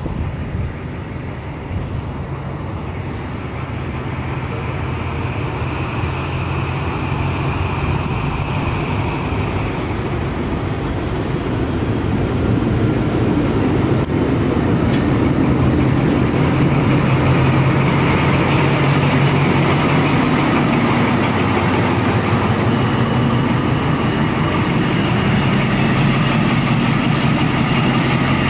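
Diesel locomotive engine running as locomotives move through the station, growing steadily louder until about halfway through, then holding a steady hum.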